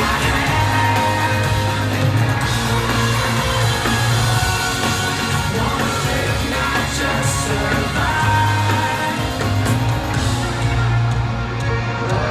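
Pop-rock song playing loudly, with singing over the band.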